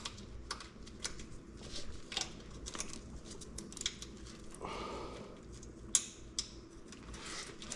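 Faint scattered clicks and light rustling as a motorcycle wiring harness and its ground lug are handled and worked into place, with a brief scrape about five seconds in.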